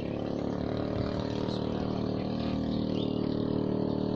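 Boat engine running steadily at a constant pitch, a little louder toward the end.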